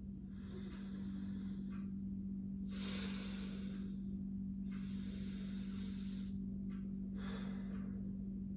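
Slow, deep breathing through the nose during anulom vilom alternate-nostril breathing: a series of hissing inhalations and exhalations of one to two seconds each, with short pauses between them. A steady low hum runs underneath.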